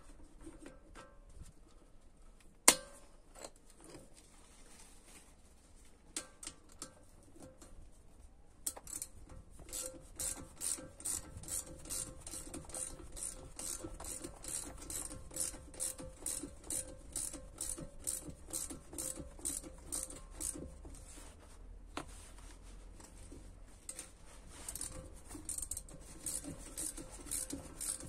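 Ratchet wrench clicking as the top nut of a MacPherson strut is tightened down. After scattered clicks and one sharp metal knock a few seconds in, it settles about a third of the way through into a steady rhythm of about three clicks a second.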